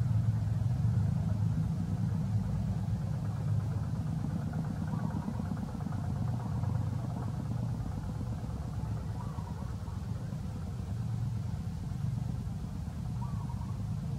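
Steady low rumble, with three faint short chirps spaced about four seconds apart.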